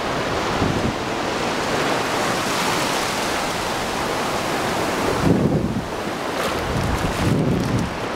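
Ocean surf washing up the shore in a steady hiss; from about five seconds in it thins out and gusts of wind buffet the microphone.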